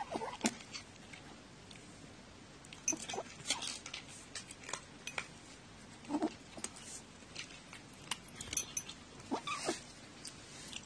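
Kitten eating dry kibble from a bowl, with crunching and short grumbling vocal sounds between mouthfuls a few times; these are the eating noises that the subtitles hear as angry words.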